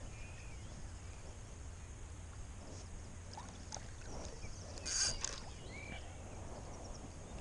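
Small perch on a spinner splashing at the water's surface, with one short, louder splash about five seconds in as it is lifted out of the water. A bird chirps faintly.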